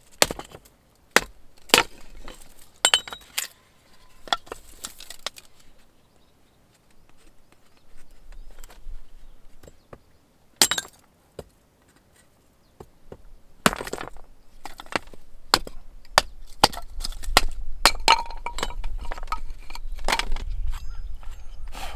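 Scattered clinks and knocks of hard objects being handled, some glassy or metallic and some wooden. Wind buffeting the microphone builds up as a low rumble in the second half.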